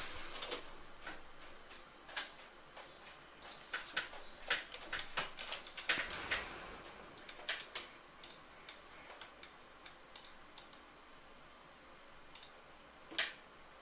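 Irregular light clicks and taps of a computer mouse and keyboard, with a short hiss about six seconds in and a sharper click near the end.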